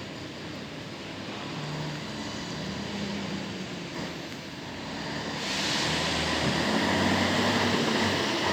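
Heavy truck engine running and growing steadily louder as it comes closer, with a rush of higher noise joining about five seconds in.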